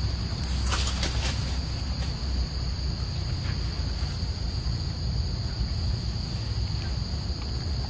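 Steady chorus of insects, a continuous high buzz, over a low rumble, with a few sharp clicks about a second in.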